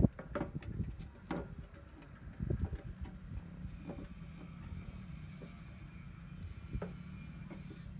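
Wind buffeting the microphone in a low, steady rumble, with a few short knocks in the first few seconds and a thin, steady high tone from about halfway.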